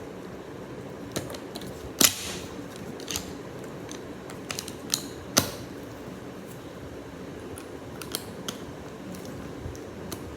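Plastic Lego bricks clicking against each other and being pressed together, in scattered irregular clicks with the two loudest about two and five seconds in, over a steady low background hum.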